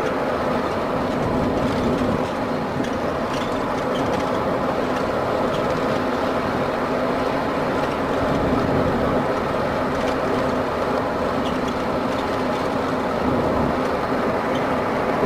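Converted-bus motorhome driving steadily at cruising speed: constant engine drone and road noise with small rattles.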